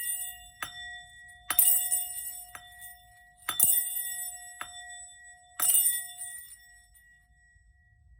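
A small metal bell or chime struck about six times, roughly once a second, alternating stronger and softer strikes. Each strike rings on with clear sustained tones, and the ringing dies away near the end.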